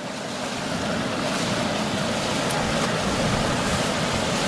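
Steady rush of lake water pouring over a metal mesh grate at an outflow. It grows louder in the first second, then holds.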